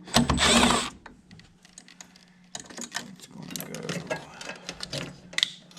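Hand-work clatter: a loud scraping rustle in the first second, then a run of small sharp clicks and light metallic rattles as parts and wiring are handled.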